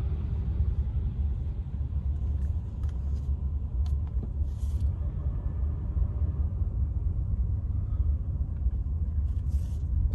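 Steady low rumble of a car moving slowly, heard from inside the cabin: engine and tyre noise.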